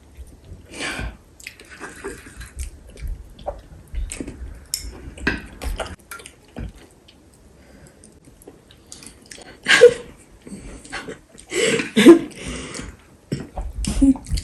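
Eating at the table with chopsticks: scattered clicks of chopsticks against bowls and plates, wet soup and liquid sounds, and chewing. There are a few louder bursts about ten and twelve seconds in.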